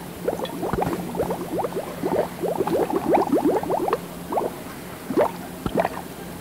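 Bubbling-cauldron sound effect from the speaker of a Cauldron Creep animated Halloween prop: a rapid run of gurgling bubble pops over a low steady hum.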